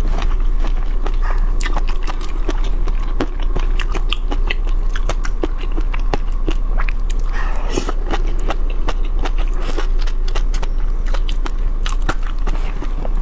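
Close-miked chewing and biting of shrimp topped with fish roe and caviar: a steady run of small wet clicks and crunches.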